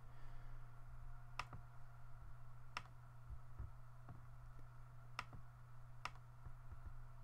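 Computer mouse button clicking four times at uneven intervals, over a faint steady low hum.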